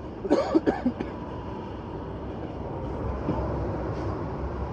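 Low engine rumble of a heavy vehicle, growing louder from about halfway through.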